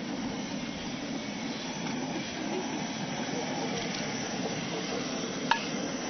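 Steady low noise with a single sharp clink about five and a half seconds in.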